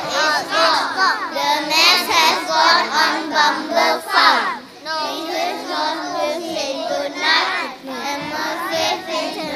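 A group of young children singing together.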